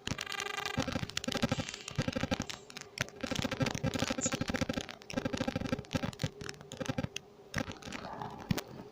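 Music playing through an InPods12 Pro earbud, an AirPods Pro clone. The sound is thin and not very loud, with hardly any bass.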